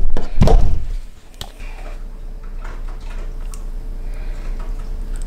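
A few heavy thumps and knocks in the first second as the camera is handled and set down, then only faint small kitchen handling sounds.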